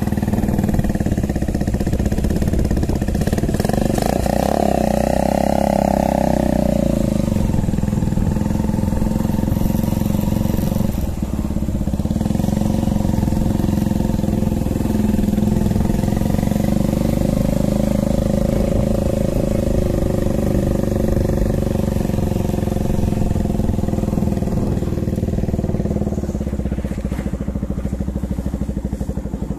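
Motorcycle engine running as it is ridden slowly at low speed, a steady engine note with its firing pulses close to the microphone.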